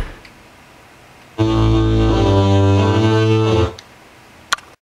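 LABHORN PA subwoofers playing a single loud, bass-heavy held note for about two seconds, starting about a second and a half in and cutting off sharply. A sharp click comes near the end.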